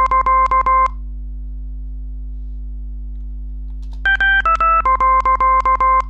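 Dexcom CGM low alert: a quick run of short electronic beeps that step down in pitch in three stages, a signal that goes low for low glucose. It stops about a second in and plays again about four seconds in, over a steady low hum.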